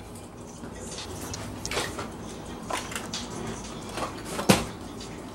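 A door opening and someone walking into a small room: a few soft clicks and knocks, then one sharper knock about four and a half seconds in.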